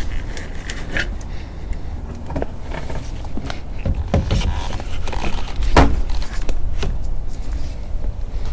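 Plastic fittings of an RV macerator pump being handled and twisted onto an RV sewer outlet: clatter with several knocks and clicks, the loudest about six seconds in, over a steady low rumble.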